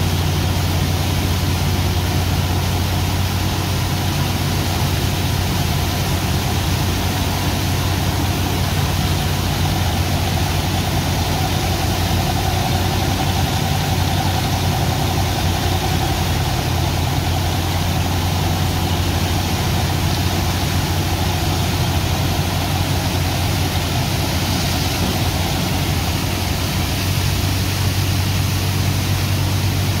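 Sand-dredging pump engine running steadily with a low hum, under the constant hiss and rush of a water jet spraying into wet sand.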